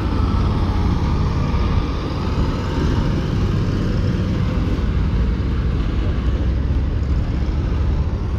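A car driving at a steady pace: constant low engine and road rumble with a hiss of wind and tyre noise, heard from inside the car.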